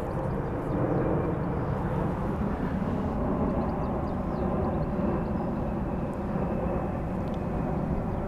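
Wind blowing across the microphone: a steady, low, fluctuating rush.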